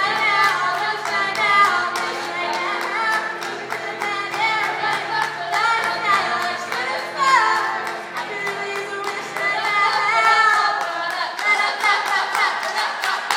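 Two women singing a pop-song mashup together, their voices gliding between notes over a steady beat of sharp rhythmic strokes.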